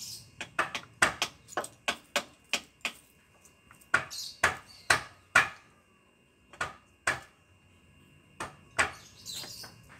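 Plastic bottle of engine oil glugging as it empties into a diesel engine's oil filler: a string of sharp pops, about two a second at first, then slower and further apart.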